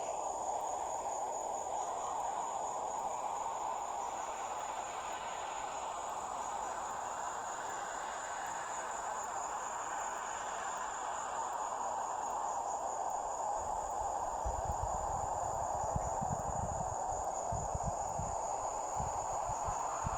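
Crickets chirping steadily in one continuous high trill, over a steady hiss. Low rumbling thumps come and go in the last few seconds.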